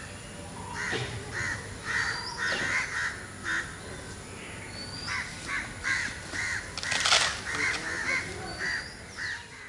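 Birds calling: many short calls repeated in quick succession, with a few higher, rising whistled notes from another bird between them. A brief rush of noise cuts across about seven seconds in, and the sound fades out near the end.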